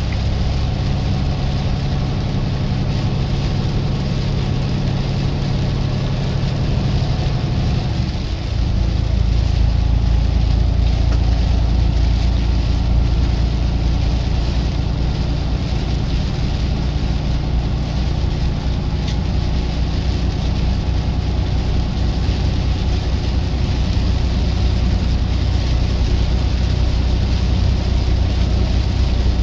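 Semi-truck diesel engine and road noise, heard steadily from inside the cab while driving. About eight seconds in the sound dips briefly, then the engine note settles lower and louder.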